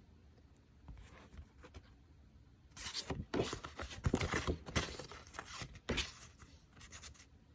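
Stiff photo cards being handled and slid against each other: a run of irregular papery scrapes and light clicks that starts a few seconds in and stops shortly before the end.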